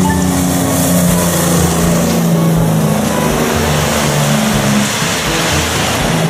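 Diesel engine of a semi-trailer LPG tanker truck running steadily as it drives past, with tyres hissing through spray on a wet road.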